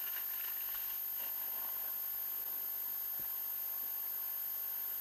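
Steady, even hiss of open-water ambience over calm sea, with a thin, constant high-pitched tone.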